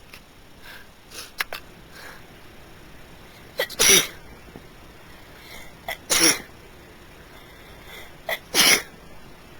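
A person sneezing three times in a row, roughly two and a half seconds apart, in a sneezing fit. Each sneeze has a short sharp catch of breath just before it.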